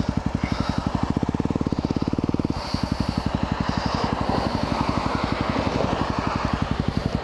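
2010 Yamaha WR250R's single-cylinder four-stroke engine idling at a standstill, a quick, even pulsing beat. The hiss of cars passing through the intersection rises over it in the middle.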